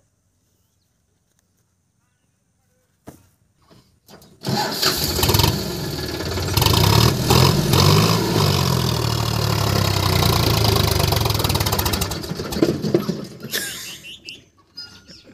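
Sonalika mini tractor's diesel engine starting about four seconds in, then running loud and revving up and down as it strains to pull a loaded trolley over rutted mud. The sound falls away near the end.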